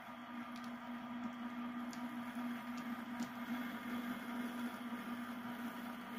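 HO scale model diesel switcher running along the track: a steady hum from the locomotive, swelling as it passes closest, with a few faint clicks.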